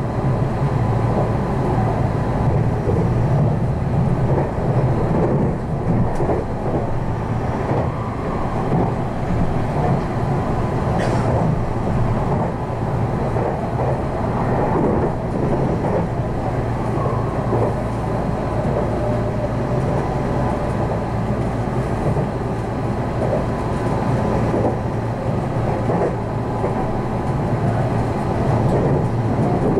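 Meitetsu electric train running along the line, heard from inside the car: a steady rumble of wheels on rail, with a faint, steady, thin whine above it.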